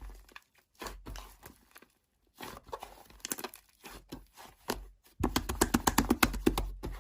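Slime being squished and pressed by hand, making a run of small sticky clicks and pops that come thick and fast in the last two seconds.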